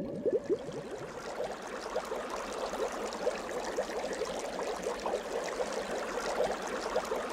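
Water bubbling and gurgling, with a dense stream of small bubble blips over a steady wash of water noise.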